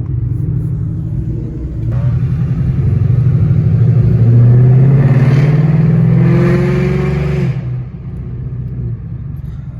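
Ford Mustang GT's 5.0 V8 through a loud exhaust, its revs climbing steadily for a few seconds and then dropping back abruptly to a lower rumble near the end.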